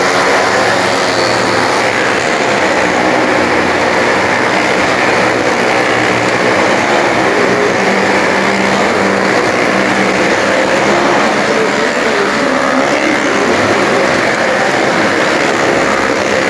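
Car and motorcycle engines running hard and steadily as they circle the vertical wooden wall of a well-of-death drum. The sound is loud and continuous, several engines overlapping.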